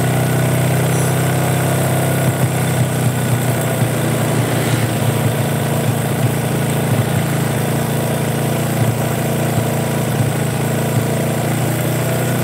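Honda Supra 125's single-cylinder four-stroke engine idling hot, with small uneven pulses in its beat. It is in the warmed-up state in which it keeps stalling, the fault being diagnosed.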